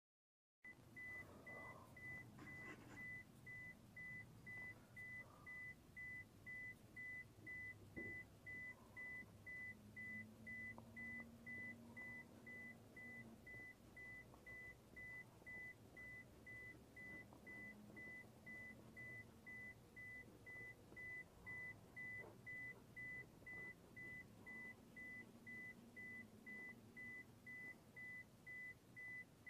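Faint electronic warning chime of a 2005 Scion xB beeping on and off rapidly and evenly in one high, unchanging note, with a few faint knocks under it near the start.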